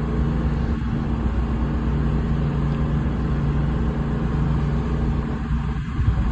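A tour boat's engine drones steadily underway, heard from aboard, with a steady rush of wind and water over it.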